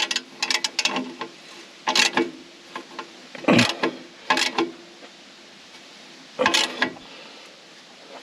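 Hand-tool work on a skid steer's hydraulic hose fitting: a run of quick clicks, then four separate knocks spread through the next few seconds.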